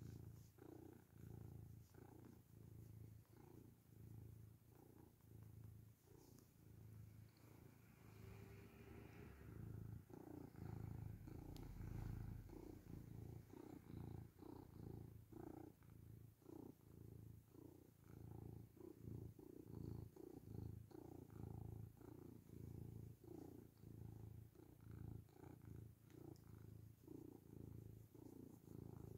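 Domestic cat purring while being stroked: a faint low buzz that swells and eases with each breath in and out.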